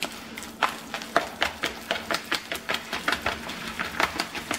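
Wet squishing and slapping of a bare hand kneading a raw meatloaf mixture of ground meat, oatmeal and egg whites in a plastic mixing bowl, in quick rhythmic squeezes about four a second.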